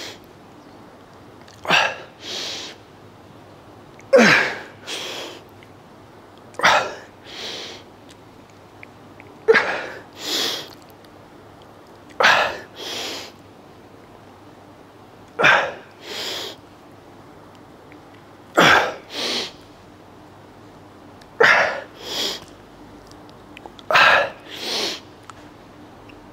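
A man's hard, rhythmic breathing while curling dumbbells: a sharp, forced breath with a slight grunt, then a softer quick breath, about every two and a half to three seconds, one pair per rep, nine times over.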